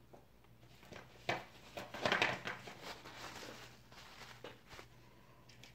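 Watercolour palette and paint tubes being handled and set down: a string of irregular knocks and clatter, busiest about two seconds in, over a faint steady hum.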